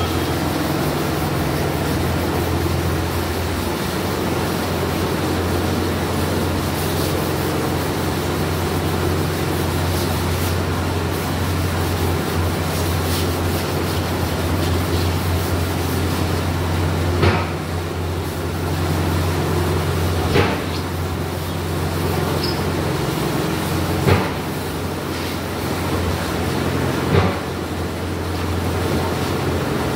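A steady low mechanical hum runs throughout, with four sharp knocks in the second half, about three seconds apart.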